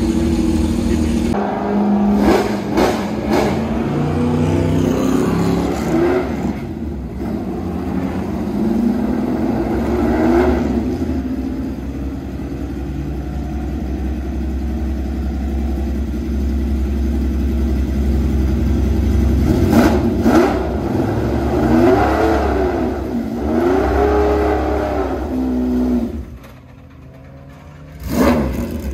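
Alfa Romeo 33 sports-prototype racing engine running at a lumpy idle and blipped again and again, each rev rising and falling, as the car pulls out onto the pit lane. The sound dips for a moment near the end, then there is one more sharp rev.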